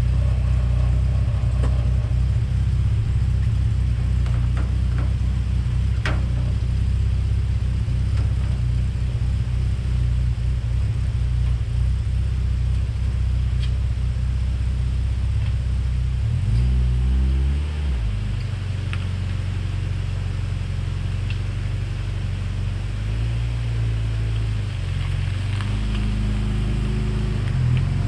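Lotus Elise S1's 1.8-litre Rover K-series four-cylinder running at a low, steady idle, with its revs shifting up and down briefly about two-thirds through and again near the end as the car is manoeuvred.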